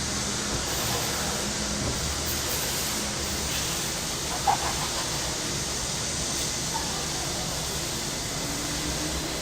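Steady summer cicada chorus, heard as an even high hiss, over a low city rumble. One short sharp sound stands out about halfway through.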